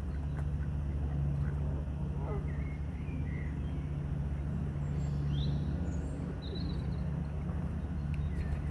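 Birds at a lake edge giving short, scattered chirps and calls over a steady low rumble.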